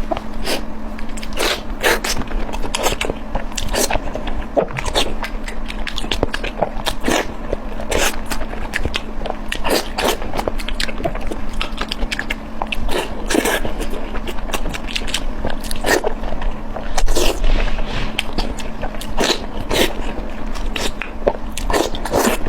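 A person biting and chewing crunchy food: a fast, irregular run of crisp crunches and clicks, over a faint steady hum.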